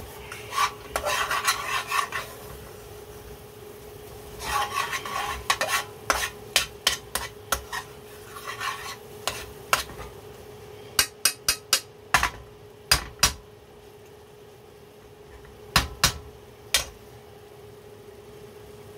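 A metal spoon stirring and scraping thick chicken tikka masala sauce in an aluminium frying pan, in three spells of stirring. Between and after them come runs of sharp clicks of the spoon against the pan, with a steady faint hum underneath.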